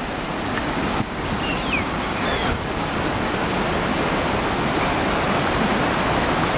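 Mountain stream rushing over rocks: a steady hiss of running water.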